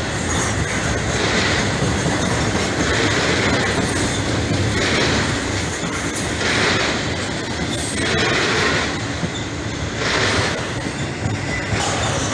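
BNSF intermodal freight train cars rolling past close by: a steady rumble of steel wheels on rail, swelling about every second and a half to two seconds as each set of trucks goes by.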